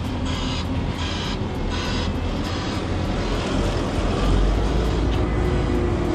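Linde H50 forklift engine running as the truck drives with a load and passes close by, getting louder about four seconds in as it works, with a repeating high beeping in the first two seconds.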